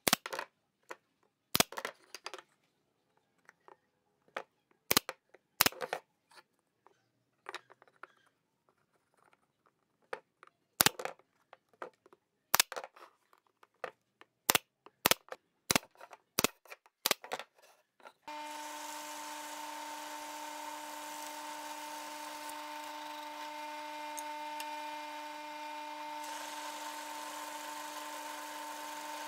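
Pneumatic brad nailer firing about a dozen sharp shots at irregular intervals, driving brads into pine. About 18 seconds in the sound switches to a drill press motor running steadily while a large flat wood-boring bit bores into a pine strip.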